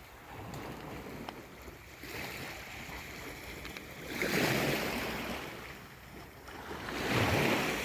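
Small sea waves washing onto the shore of a bay, with two louder washes, one about four seconds in and another near the end.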